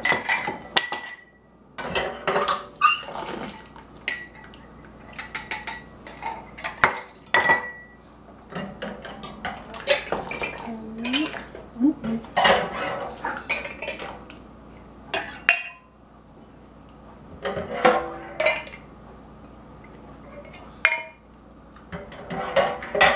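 Metal ladle clinking and scraping against a stainless steel stockpot and glass jars while hot fig jam is ladled into jars, with jar lids being handled. A string of irregular sharp clinks, some of them ringing briefly.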